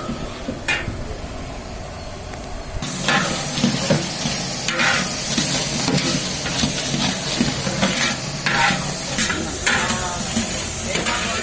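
Food frying and sizzling in a cooking pot while a ladle stirs and scrapes it, with repeated short knocks. The frying hiss starts abruptly about three seconds in, after a quieter stretch with a few clicks.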